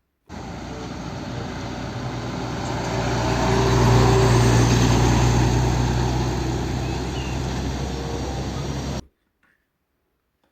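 A truck's engine droning past, with a steady low hum. It swells to its loudest about four seconds in, eases off, then cuts off suddenly near the end as a dropped-in sound effect.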